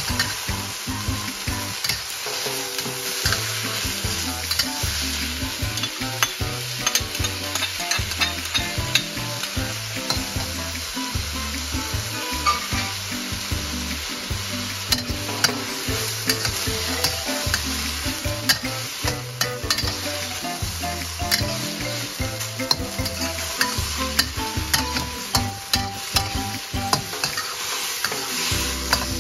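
King oyster mushroom strips sizzling in a hot wok while a metal wok spatula stirs and tosses them, with frequent clicks and scrapes of the spatula against the pan.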